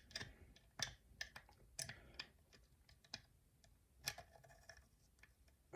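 Faint, irregular small metallic clicks and ticks of an old wafer locker lock, with its core removed, being worked with a tension bar to turn the mechanism.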